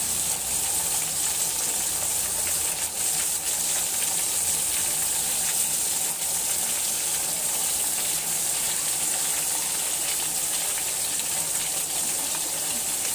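Potato and eggplant slices deep-frying in hot oil, a steady sizzle.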